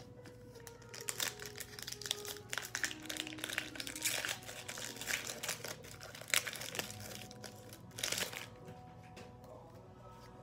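Foil Pokémon booster pack wrapper crinkling as it is handled and opened, in irregular rustles that are loudest about eight seconds in, then fade. Faint music runs underneath.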